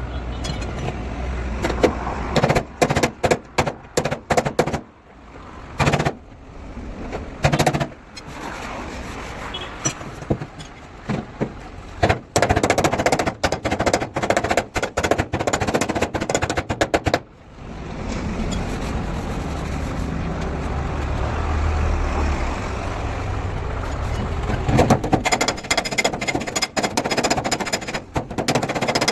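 Runs of sharp, rapid impacts and single knocks from body-shop repair work on a crashed car's metal body, with a steadier mechanical noise for several seconds past the middle.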